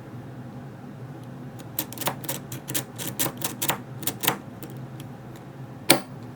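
Cross lock rake pick being raked in a 16-pin FANAL cross padlock: a quick, irregular run of sharp clicks for about three seconds, starting a couple of seconds in, then a single click near the end.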